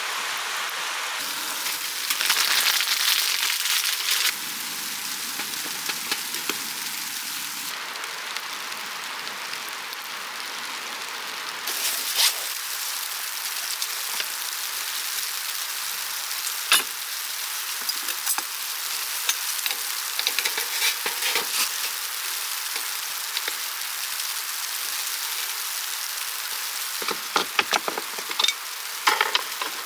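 A steady hiss throughout, with a few single sharp clicks and then a quick cluster of clicks near the end as a plastic food container's snap-lid is unclipped.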